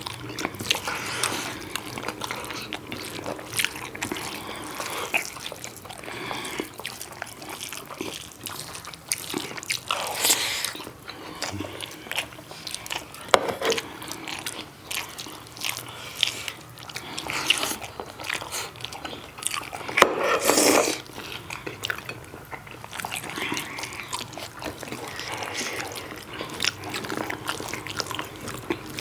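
Close-up eating sounds of people chewing pork curry with rice: irregular wet clicks and mouth noises, with a louder stretch about twenty seconds in.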